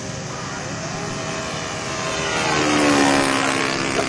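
Radio-controlled model Yak-54 aerobatic plane passing overhead, its propeller motor's pitch rising in level and then dropping as it flies by, loudest about three seconds in.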